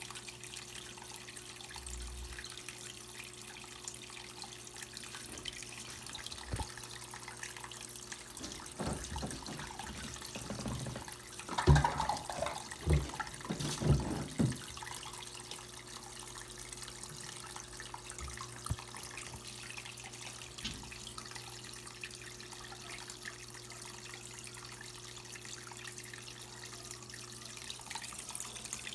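Electrolux Prosdócimo washing machine on its rinse: water running steadily into the tub with a faint steady hum, and a burst of knocks and sloshing about halfway through.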